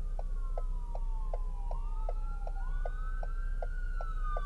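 Inside a car, a turn signal ticking steadily, a little under three ticks a second, over the low rumble of the car. Above it, several thin whistling tones glide slowly down and up in pitch, crossing one another like a moan or a distant siren.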